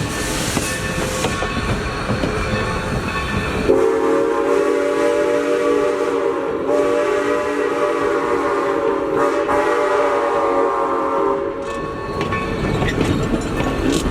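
A train rolling along on the rails. About four seconds in, its locomotive sounds one long chord-like horn blast lasting around eight seconds, then cuts off, leaving the rumble and clatter of the moving train.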